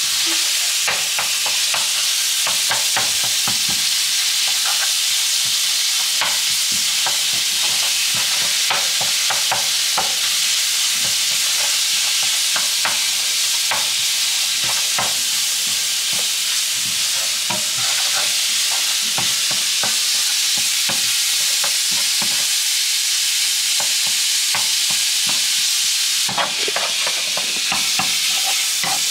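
Minced meat and onion sizzling in oil in a frying pan, with a steady hiss, and frequent short clicks and scrapes from wooden tongs stirring and breaking up the meat against the pan.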